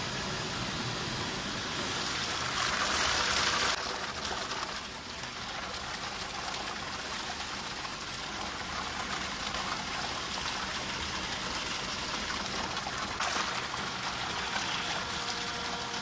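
Powder-liquid mixing machine running, water churning steadily in its tank with a low motor hum under it, as powder is drawn into the swirling water. The rushing swells briefly about three seconds in and again later on.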